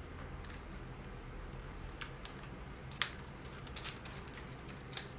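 Scissors snipping through a toy's wrapping: a few scattered sharp snips and rustles, the loudest about three seconds in, with a small cluster just after.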